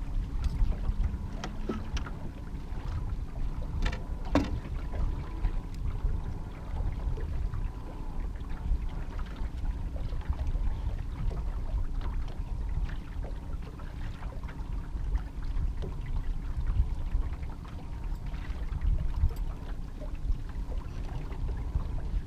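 A small boat running slowly while trolling, a steady low rumble with wind buffeting the microphone. A few light clicks and knocks from rod and gear handling in the aluminium boat, the clearest about four seconds in.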